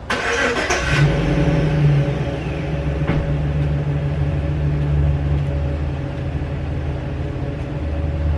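Truck engine starting: about a second of starter cranking, then the engine catches, revs briefly and settles into a steady idle.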